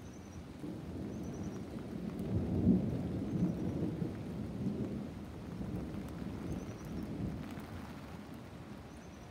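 Rolling thunder rumbling deep and low, swelling to its loudest about two and a half seconds in, then slowly dying away.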